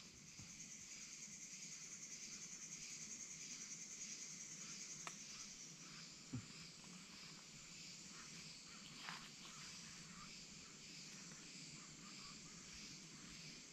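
Faint chorus of insects such as crickets, a steady high-pitched trill with a fast pulsing texture, with a few small clicks.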